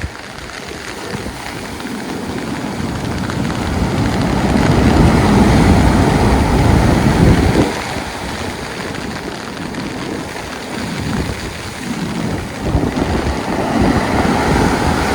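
Storm surf breaking and washing up the beach, with wind buffeting the microphone. The surge swells up a few seconds in, eases off about halfway through, and another wave builds near the end.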